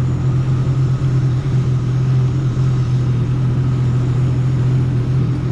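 Jet ski engine idling steadily at a constant low pitch, with no revving.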